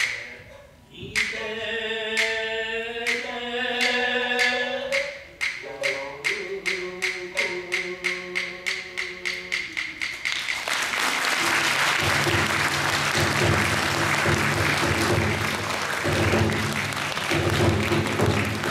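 A sung voice over wooden clapper strikes that come faster and faster as the curtain closes, then audience applause swelling from about ten seconds in, with music carrying on underneath.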